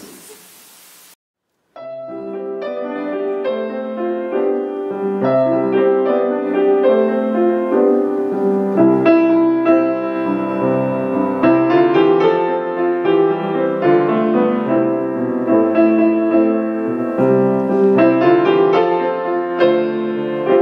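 Solo piano playing a slow, gentle piece in full chords, starting just under two seconds in after a second of faint room noise and a brief cut to dead silence.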